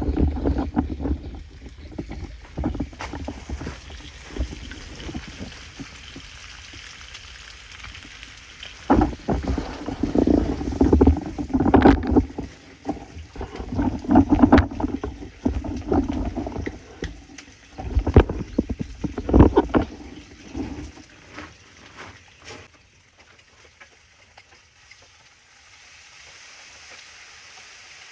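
Irregular low rumbling gusts and thumps of buffeting on the microphone, fading out after about twenty seconds, with a faint steady sizzle of bacon and bread frying on a propane griddle near the end.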